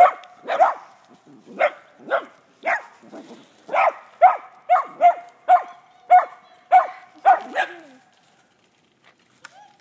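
Dogs barking repeatedly, about a dozen barks roughly half a second apart, stopping about eight seconds in.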